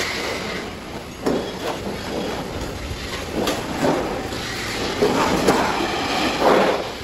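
Thin galvanized sheet steel rattling and buckling, with irregular metallic clanks and crinkles, as it is cut with long hand shears and then lifted and flexed. The clatter gets busier and louder in the second half, when the big sheet is being handled.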